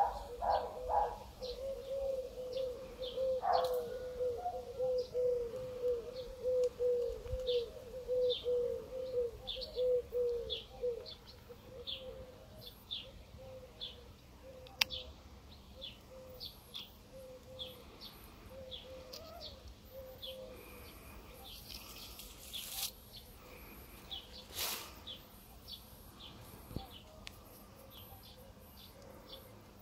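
Birds calling: short high chirps repeated about twice a second throughout, over a quick run of low repeated notes that fades out about eleven seconds in. Two brief rustles come a little over twenty seconds in.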